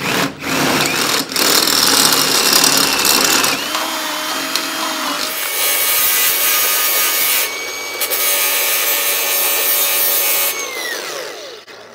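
Power grinder grinding down the heads of huck rivets so a bracket sits flush, its motor whine shifting in pitch under load. Near the end the grinder is released and winds down with a falling whine.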